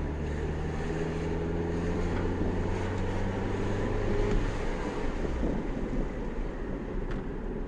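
2007 Mini Cooper S R56's turbocharged 1.6-litre four-cylinder engine running smoothly while the car is driven, with road noise under it. The steady engine note drops away a little past halfway, leaving the road noise.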